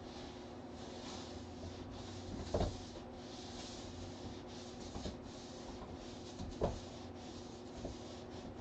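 Broom bristles rustling and scratching in repeated strokes as kittens play with the broom, with two sharp thumps about two and a half and six and a half seconds in, over a steady low hum.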